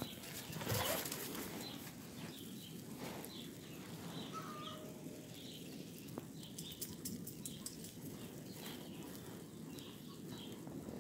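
Small birds chirping in short, repeated calls, with a brief rustle of dogs' paws scuffling on frosty grass about a second in.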